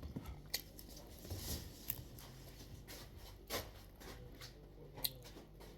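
Faint scattered clicks and light knocks, four of them a second or so apart, over a low steady hum.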